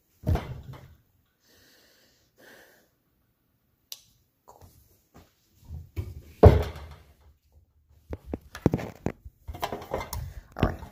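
Handling noise from a phone being moved and picked up: a knock just after the start, a heavier thump about six and a half seconds in, then a quick run of clicks, bumps and rubbing over the last few seconds.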